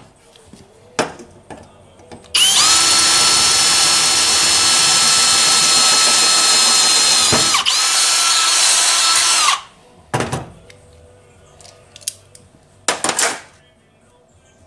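Handheld power drill running at a steady speed for about seven seconds, with a brief dip in pitch as the trigger is eased off and squeezed again. A few short knocks and clicks come before and after it.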